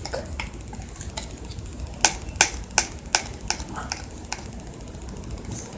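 A run of sharp, light clicks, a few faint ones at first and then about seven clearer ones at roughly two and a half a second, before they thin out.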